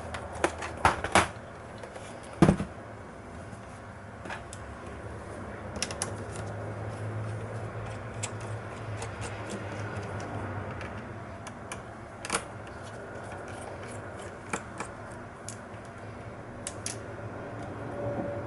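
Small clicks and taps from handling laptop parts and tools during disassembly, with a cluster of clicks about a second in and a louder knock about two and a half seconds in, then occasional single clicks over a steady low hum.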